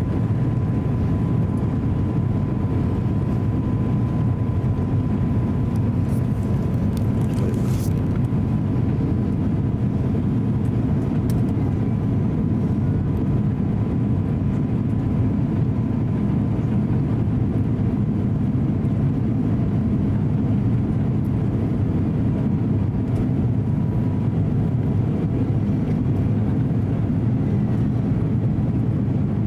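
Steady cabin noise inside an Airbus A350-900 on final approach: a low rumble of its Rolls-Royce Trent XWB engines and the airflow over the airframe. A faint steady high tone runs over it and fades out about three-quarters of the way through.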